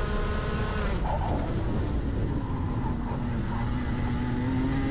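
Rotax Max 125cc two-stroke kart engine heard from on board: its pitch drops about a second in as the driver lifts off to brake for a corner, runs low, then climbs steadily from about three and a half seconds in as he accelerates out.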